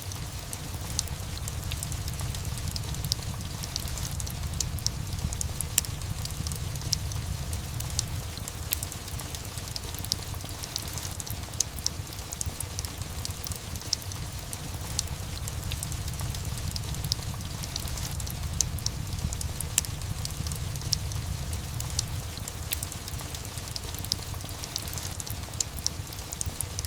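Steady rain mixed with a crackling fireplace: a continuous low rumble under a constant wash of rain, with many small sharp crackles and pops scattered throughout.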